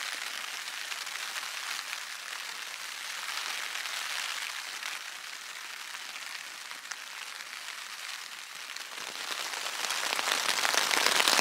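Rain falling on the fabric of a Lanshan Pro 1 tent, heard from inside as a steady patter of drops that grows heavier and louder about nine seconds in.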